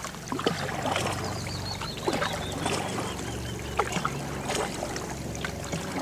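A kayak being paddled on calm water: paddle strokes with water dripping and light knocks of the paddle, over a low steady hum.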